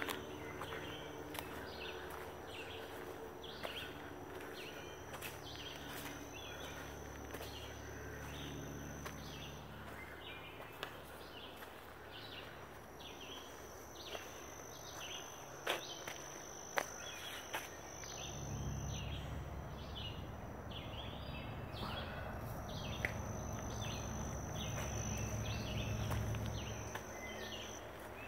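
Woodland ambience: an insect drone that comes and goes in stretches of several seconds, many short repeated chirping calls, a few twig snaps and footsteps in the middle, and a low rumble in the second half.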